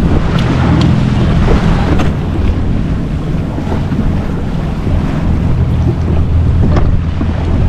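Jet ski engine running steadily, with water rushing past the hull and wind buffeting the microphone. A few short sharp knocks stand out, about half a second, one second and two seconds in, and again near the end.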